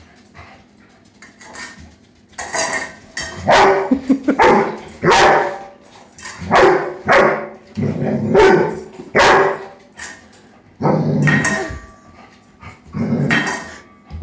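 Young Airedale terrier barking about a dozen times in uneven bursts, starting about two seconds in. He is barking at the food bowl that holds his ball, wary of it.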